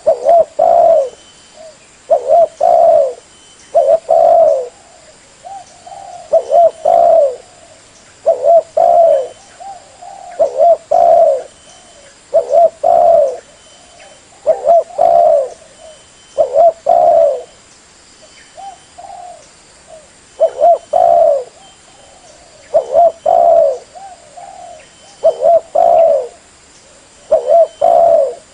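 Spotted dove (tekukur) cooing over and over, each phrase a quick group of two or three falling notes, about one phrase every two seconds. This is the call used as a lure to draw wild spotted doves in.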